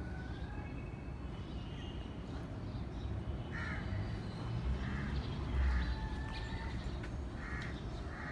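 Bird cawing over and over, about once a second from about three and a half seconds in, with a few thin chirps before that.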